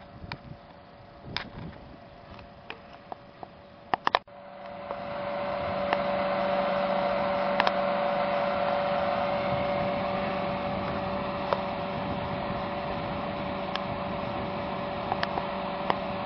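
Faint outdoor wind and handling noise with scattered clicks, then after two sharp clicks and a brief gap about four seconds in, the steady hum of a moving car heard from inside the cabin: engine, fan and road noise holding even.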